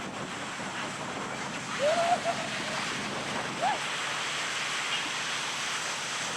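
Ocean surf washing steadily on the beach, with two short pitched calls standing out about two and three and a half seconds in.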